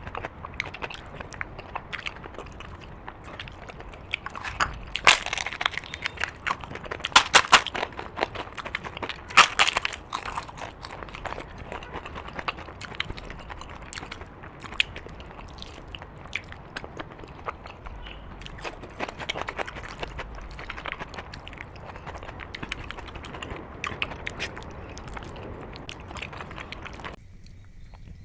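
Close-miked eating: a person chewing and biting with many short crunches and wet mouth clicks, loudest in a few clusters of sharp crunches about five, seven and nine seconds in. The sound drops away shortly before the end.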